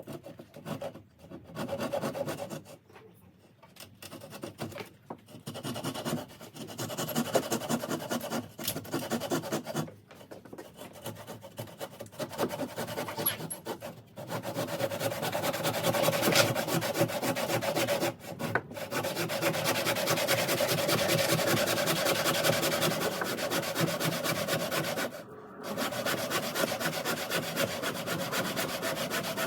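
Hand saw cutting through a timber joist. It starts in short, broken runs of strokes and then saws almost without pause for the second half.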